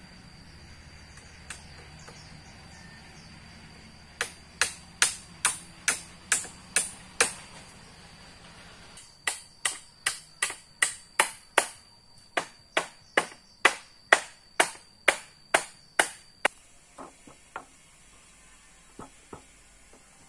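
Repeated sharp chopping strikes, two to three a second, in two runs with a pause between, then a few lighter taps near the end.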